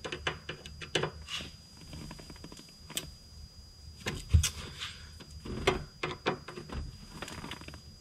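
Hand screwdriver working at stubborn kick-panel screws: irregular small clicks, scrapes and knocks of the tool against screw heads and plastic trim, with two louder knocks about four and a half and five and a half seconds in.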